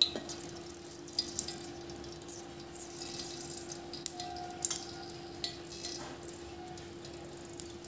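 Cooking oil heating in a wok, with faint, irregular small crackles and ticks as bubbles form, over a steady hum.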